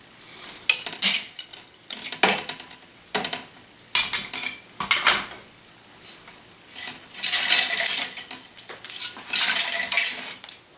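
Metal clicks and clacks of flying clamps and string being taken off a tennis racquet mounted on a stringing machine, followed by two longer scraping sounds near the end.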